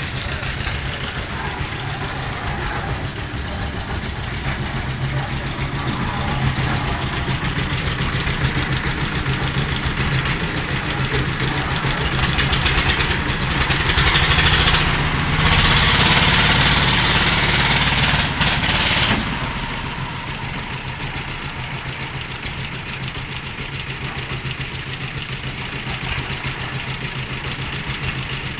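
Concrete mixer's engine running steadily with a fast, even beat. From about halfway through, a louder rushing, hissing noise lasts several seconds and cuts off sharply.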